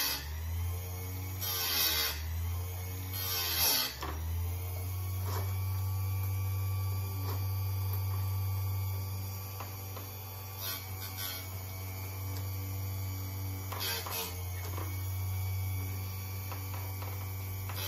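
Chicago Electric electric chain sharpener's motor humming steadily while its grinding wheel is brought down onto chainsaw chain teeth. Each grind is a short rasping burst: several in the first four seconds, then a few more after a pause.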